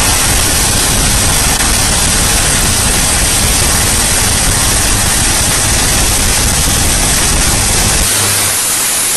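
Faulted underground power cable arcing in an open trench: a loud, steady rush of hissing noise with a low electrical hum under it, the hum coming through more plainly near the end.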